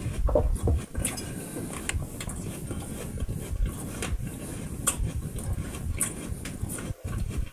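Close-up eating sounds: someone chewing food near the microphone, an uneven low rumble with many small clicks and ticks.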